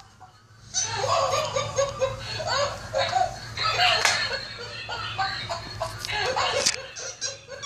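Laughing toy monkey playing recorded laughter in repeated bursts, starting just under a second in, over a steady low hum.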